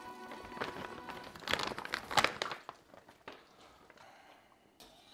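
Background music that ends about a second and a half in, then a spoon stirring rigatoni in a pot of boiling water: a few loud scrapes and knocks against the pot, followed by quieter stirring.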